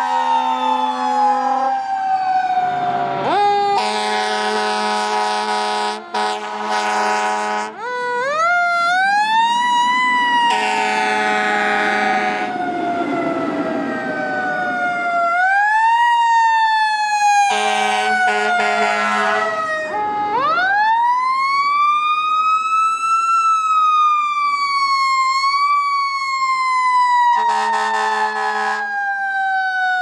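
Fire engines responding, blowing several long blasts on their deep air horns over a siren whose wail rises and falls slowly, with a few short upward blips.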